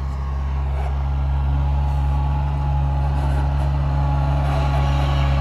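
An engine running steadily, growing slightly louder about a second in.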